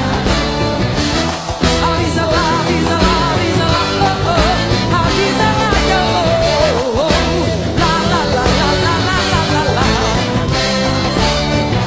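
Live axé music: a band playing at full level, with a singing voice over it.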